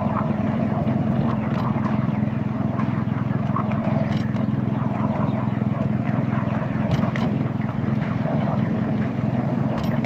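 Petrol engine of a 7¼-inch-gauge petrol-hydraulic miniature locomotive running steadily as the train travels along the line, with a few sharp clicks from the running gear on the track.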